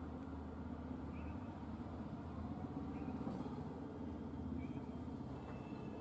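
Steady low rumble of vehicle engines, with four short, faint bird chirps spaced through it.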